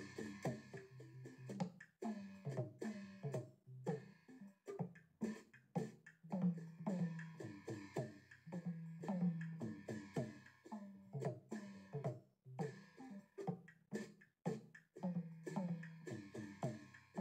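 Burmese traditional instrumental music as a soundtrack: quick runs of short struck or plucked pitched notes that die away fast, in a busy, continuous rhythm.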